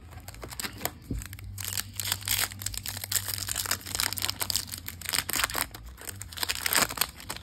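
Foil wrapper of a Topps baseball card pack crinkling and tearing as it is pulled from the box and ripped open by hand. The dense crackling starts about a second and a half in and goes on until near the end.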